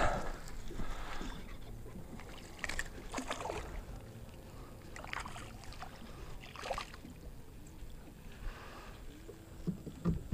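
Short splashes and water sloshing beside a kayak, several times, as a small hooked bass is reeled in and thrashes at the surface.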